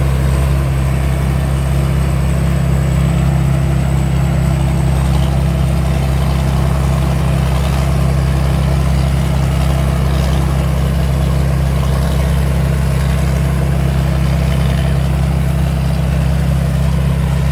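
Rice combine harvester's diesel engine and machinery running steadily, a loud unbroken low drone with a faint thin high whine above it.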